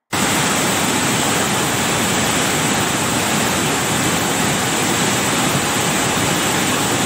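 Muddy floodwater rushing in a fast, churning torrent: a loud, steady rush of water that cuts in abruptly at the start.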